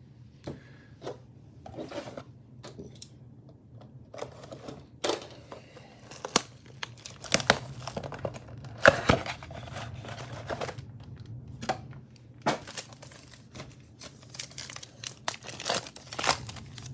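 Plastic shrink wrap being torn and peeled off a trading-card blaster box by hand, with irregular crinkling and sharp crackling snaps that grow busier about five seconds in; foil card packs rustle as they are handled near the end.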